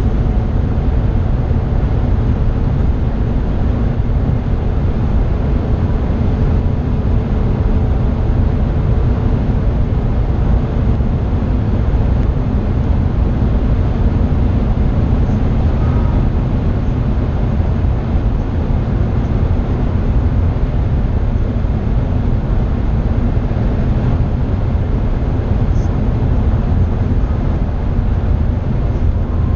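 Cabin noise of a BMW 330i's N52 3.0-litre straight-six at high Autobahn speed: a loud, steady roar of wind and tyres with the engine's hum underneath.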